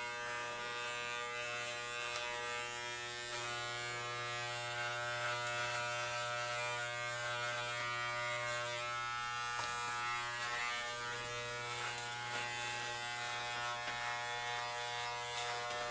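Corded electric dog clippers buzzing steadily as they are run over chest hair: a constant low hum with many overtones. The buzz falters briefly about ten and a half seconds in, then runs on.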